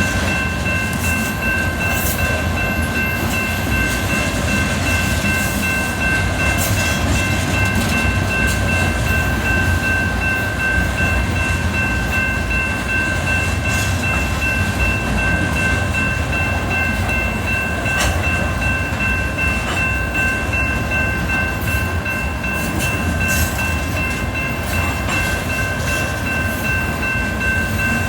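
Train rolling past at trackside: a steady low rumble with a constant high-pitched whine held over it and occasional sharp clicks.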